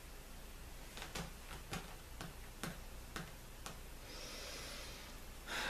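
About eight faint, sharp clicks, irregularly spaced and roughly two to three a second, starting about a second in, then a short rush of noise near the end.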